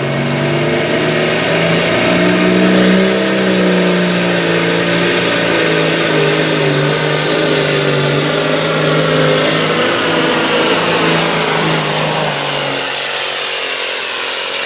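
Case IH pulling tractor's engine running at full throttle under load while it drags a weight-transfer sled, its pitch climbing slightly at first and then holding. Near the end the engine note drops away.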